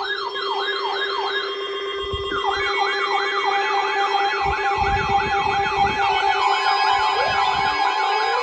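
Emergency vehicle siren in a fast yelp, rising and falling about three times a second over a steady lower tone. The yelp breaks off briefly about two seconds in, then starts again.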